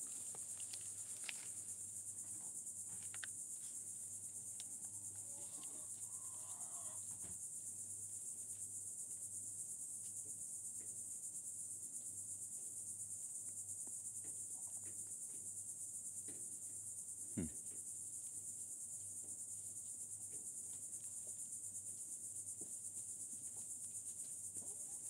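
Crickets trilling in a steady, high-pitched chorus, with a few faint clicks and one sharper knock about seventeen seconds in.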